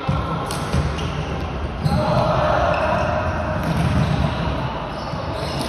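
Floorball game sounds echoing in a sports hall: sharp clacks of plastic sticks and ball, and players' feet on the court floor. Shouting rises from about two seconds in.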